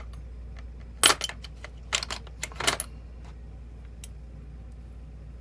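Sharp metal clicks and clinks from a lock and its small steel tools being handled while the lock is taken apart: about half a dozen taps between one and three seconds in, over a faint steady hum.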